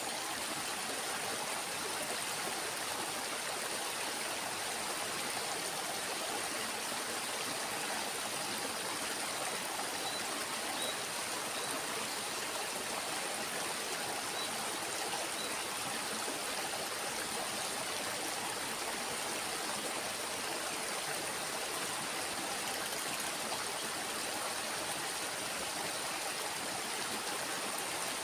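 Water of a small river flowing steadily, a constant rushing with no change in level.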